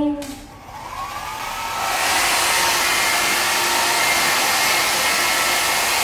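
Hand-held hair dryer switching on: its motor spins up with a rising whine, then it runs at full speed from about two seconds in with a steady rush of air and a faint whine.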